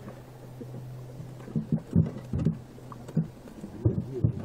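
Dull, irregular thumps as live fish are shaken out of a woven basket fish trap and flop about on the boat's floor, about eight knocks in all, loudest about two seconds in, over a steady low hum.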